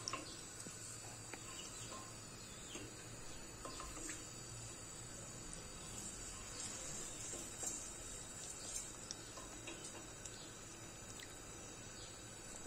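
Vermicelli frying in oil in a stainless steel pot: a faint steady sizzle, with scattered light taps and scrapes of a wooden spoon stirring it against the pot.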